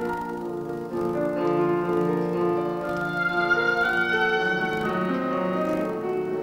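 A piano quintet, grand piano with string quartet, playing classical chamber music in sustained, overlapping notes.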